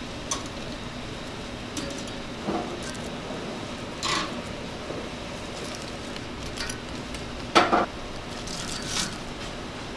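Metal tongs and utensils clinking and knocking against a steel wire draining rack as deep-fried fritters are set out, over a steady kitchen hiss. The knocks are scattered, with the loudest clatter a little after halfway.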